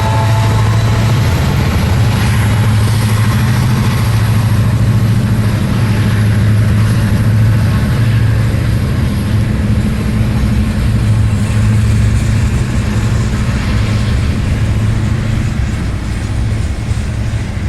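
Diesel locomotive running close by with a loud, steady low engine drone and a rushing of wheels and rails, just after a multi-note horn chord cuts off in the first moment. The drone eases slightly near the end.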